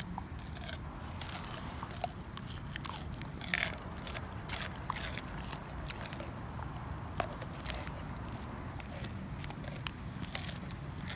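A dog (Weimaraner/English Labrador mix) chewing a whole raw fish: irregular crunches and clicks of its jaws, the loudest about three and a half seconds in.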